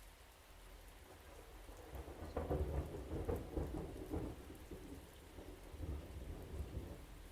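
Thunder rumbling over steady rain. A crackling roll builds about two seconds in, peaks soon after, and dies away over several seconds.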